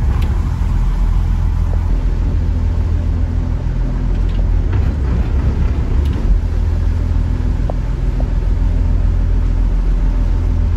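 Boat engine running steadily at low speed, a deep, even drone heard from on board, with a few faint ticks.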